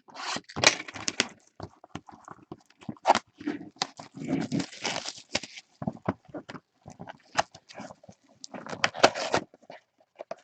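A cardboard retail box of trading cards being opened by hand and its card packs pulled out and set down: irregular rustling, scraping and light knocks.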